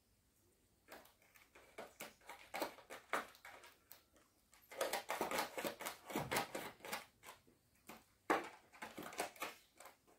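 Cat chewing and crunching a small snake it has caught: a long run of crunching clicks, busiest in the middle, with one sharper crack a couple of seconds before the end.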